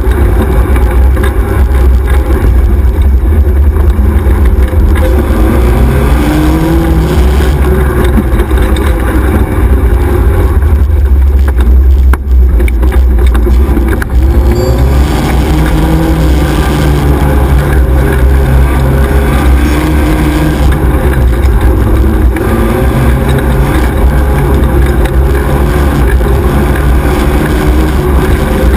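XY 1100R 4x4 buggy's engine at racing pace heard on board, revs climbing and dropping again and again, over a constant loud, deep rumble. The revs ease off briefly about halfway through.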